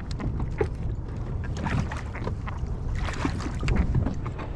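Wind buffeting the microphone, with irregular small splashes and water slapping around a kayak.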